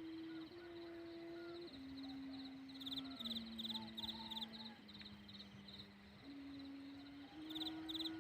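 Rattan-strung Thai kite hummer (sanu) droning in the wind: a steady wailing tone that holds a pitch, then steps lower over the first few seconds and climbs back up near the end as the wind changes. Rhythmic high chirping runs alongside it.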